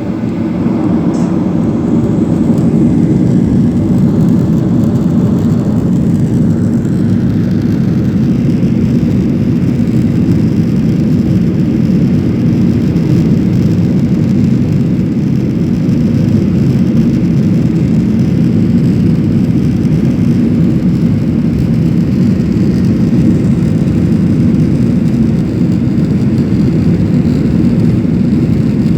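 Boeing 737 jet engines at takeoff thrust, heard from inside the passenger cabin: a loud, steady low roar that builds over the first couple of seconds and then holds.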